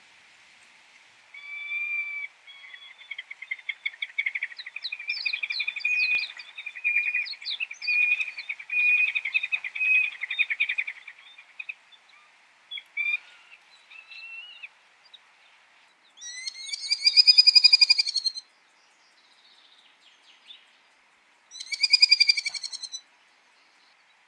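Falcon calling: a rapid chattering run of repeated calls lasting about ten seconds, a few scattered single calls, then two louder, longer harsh screams, one about 17 seconds in and one about 22 seconds in.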